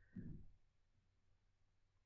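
Near silence: room tone with a faint steady low hum, after one brief soft sound in the first half-second.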